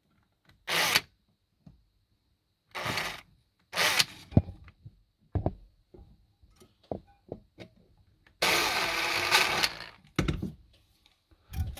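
Cordless drill with a 2 mm bit run in several short bursts, then one longer run of about a second and a half past the middle, with small knocks and clicks between. The bit is going into holes in the fiberglass dash that were already drilled.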